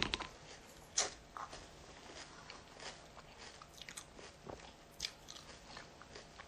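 A person chewing a mouthful of crunchy Frosted Flakes cereal close to a phone's microphone: soft, irregular crunches, with a sharper click about a second in.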